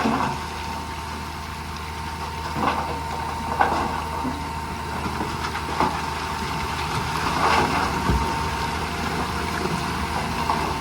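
Heavy diesel earthmoving machinery running steadily at a low drone, with a thin steady whine over it and a few sharp knocks or clanks every second or two.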